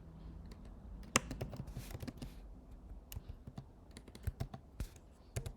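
Typing on a computer keyboard: irregular key clicks with short pauses, a few keystrokes struck harder.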